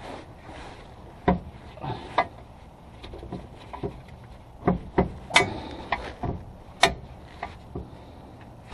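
Irregular sharp knocks and clinks of hand work on a car's underside at the drivetrain: about a dozen separate strikes, the loudest in the middle, one ringing briefly.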